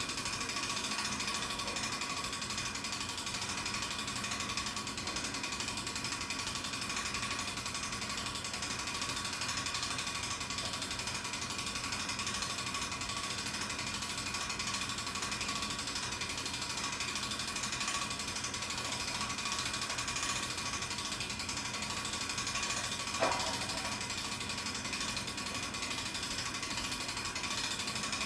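Winch ratchet clicking steadily while a tower is cranked up. About three-quarters of the way through there is one brief louder squeak.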